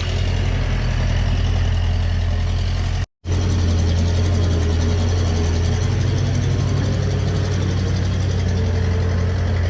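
Tractor engine running steadily at idle with a deep, even hum. The sound cuts out completely for a split second about three seconds in, then resumes unchanged.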